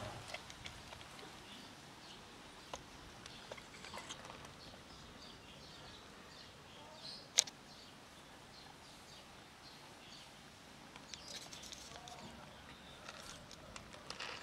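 Quiet outdoor background with faint, scattered bird chirps and small clicks, and one sharper click about halfway through.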